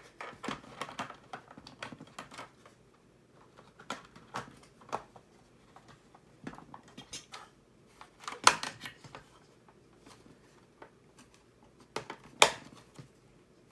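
Robot kit parts being handled and fitted together on a table: scattered light clicks and knocks, with two louder knocks about eight and twelve seconds in.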